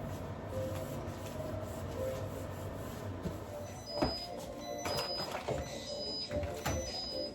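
A few sharp knocks and clatters in the second half, over a steady low hum. Faint background music with short held notes comes in toward the end.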